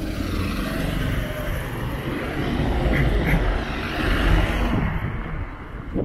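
Street traffic: a passing vehicle's rush of engine and tyre noise, swelling to a peak about four seconds in and then fading.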